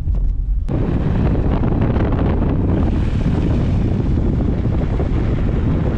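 Wind buffeting the microphone of a camera on a moving car: a dense, steady rush that starts abruptly under a second in, replacing a lower road rumble.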